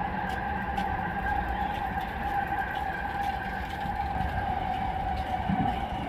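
Train running on the elevated viaduct: a steady whine over a low rumble, the rumble growing louder near the end as the train comes into view.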